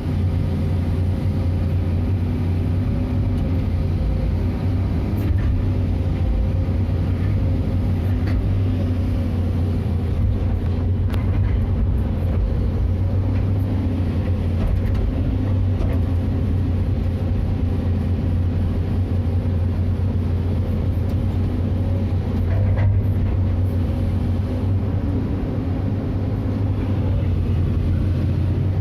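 Excavator's diesel engine running steadily, heard from inside the operator's cab: a constant low drone whose pitch wavers slightly.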